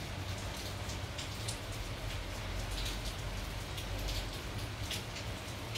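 Rain falling: a steady hiss with scattered crackling drop sounds, over a low steady hum.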